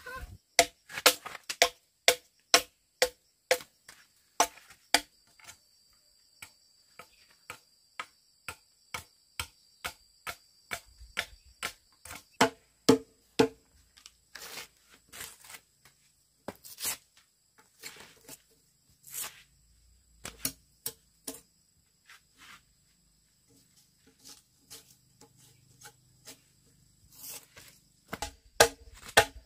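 Machete blade chopping into a log to hew it flat: sharp woody strikes, roughly one or two a second, in runs with short pauses.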